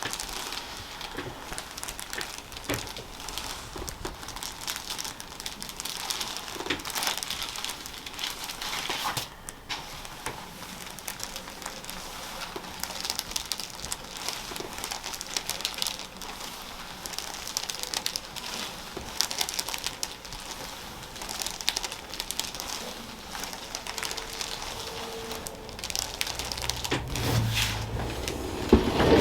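Soft rustling and crinkling of hands working over hair, skin and clothing around a person's head and neck, with scattered small crackles. It gets louder and lower in the last few seconds.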